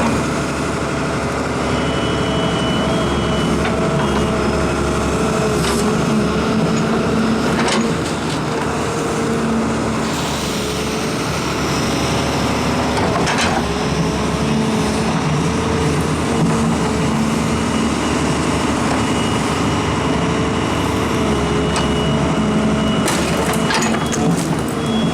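Doosan DX140WV wheeled excavator's diesel engine running steadily, with a few short clunks along the way.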